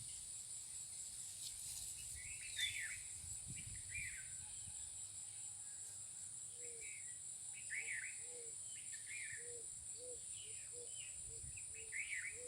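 Insects buzzing in a steady high-pitched drone, with scattered bird chirps and, from about six seconds in, a run of short lower calls.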